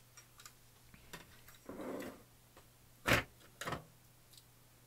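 A Commodore 64 motherboard being turned over and set down on a wooden workbench: light clicks, then two sharp knocks about half a second apart as the board lands.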